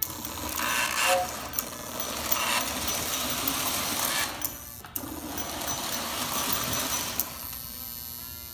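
Vintage Lionel toy train running on its track: a steady mechanical whir from its electric motor and wheels, with scattered sharp clicks. It breaks off briefly about five seconds in and dies away after about seven seconds.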